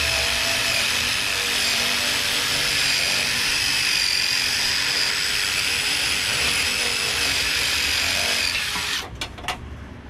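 Handheld power tool running at a steady speed with a constant whine, then stopping abruptly about nine seconds in, followed by a few short clicks.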